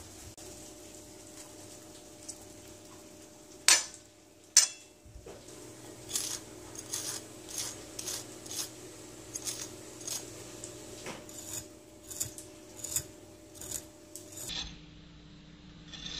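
A knife is sawing through the crispy browned skin of a griddle-fried chicken thigh on a plate, making a run of short crunchy crackles about two a second. Before that come two sharp clinks of cutlery on the plate, the loudest sounds in the clip.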